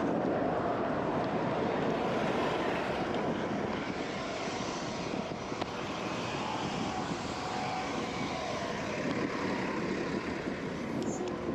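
Steady rushing roar of wind and street traffic around a cyclist on the move.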